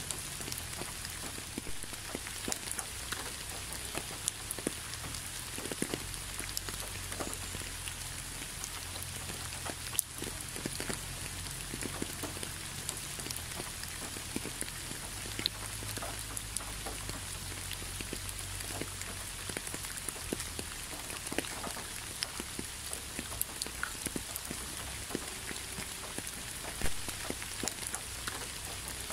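Steady rain, with single drops ticking irregularly on a surface; one louder drop near the end.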